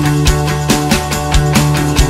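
Rock music with a fast, steady drum beat over held instrument notes.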